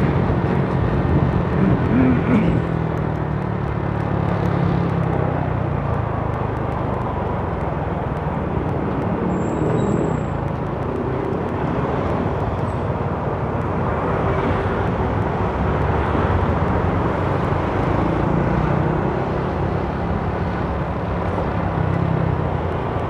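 Motorcycle riding through city traffic: steady engine and road noise with wind rumbling on the microphone.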